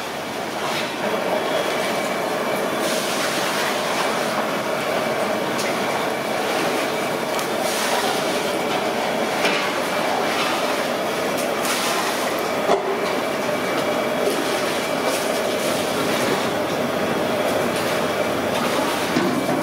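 Battered chicken pakora deep-frying in a kadai of hot oil, a steady loud sizzle, with a sharp knock about two-thirds of the way through.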